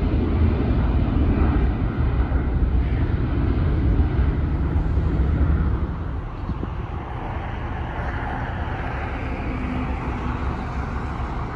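Jet airliner engines at takeoff power: a steady, loud rumble from a climbing cargo jet. About six seconds in it drops suddenly to the quieter rumble of a more distant narrow-body jet taking off.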